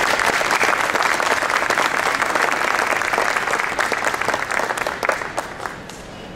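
Audience applauding after a song ends, the clapping fading away near the end.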